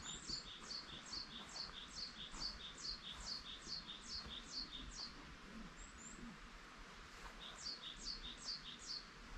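A small songbird singing a quick series of high, falling notes, about three a second for some five seconds, then a shorter run of the same notes near the end.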